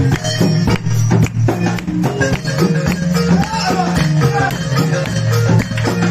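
Loud dance music with a steady percussion beat and a deep bass line.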